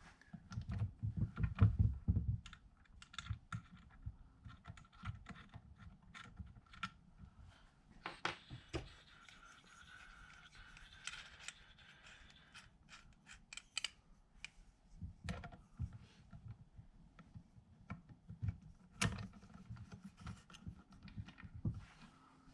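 Screws being driven by hand into a door knob set on a small wooden door: irregular small clicks, taps and rattles of the metal knob hardware and screwdriver, with a stretch of scraping about eight seconds in.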